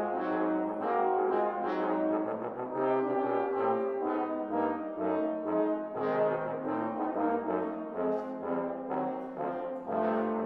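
Brass ten-piece ensemble of trumpets, horns, trombones and tuba playing a rhythmic passage of repeated chords.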